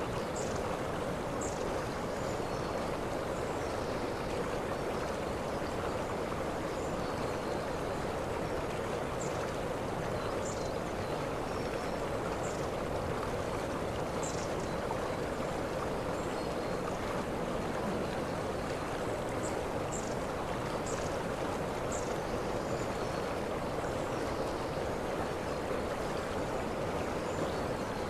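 Waterfall rushing steadily, with short high-pitched chirps every second or two over the water.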